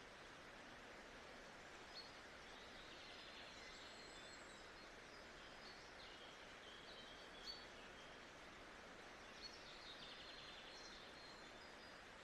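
Faint, steady nature ambience with an even hiss, and small birds chirping now and then high above it, with a short trill about three seconds in and another near ten seconds.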